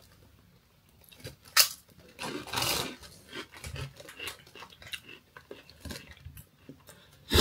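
A crinkle-cut potato crisp bitten with one sharp crunch about one and a half seconds in, then chewed with a run of crunching sounds.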